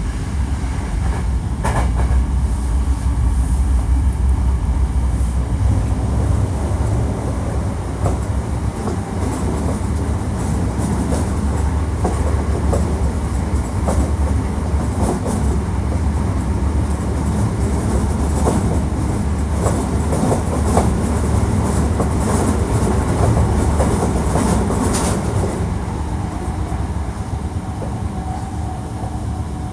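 Hankyu 1300 series electric train running along the track: a steady low rumble of wheels on rail, with repeated clicks and clacks from the wheels over the rails. A steady tone comes in near the end.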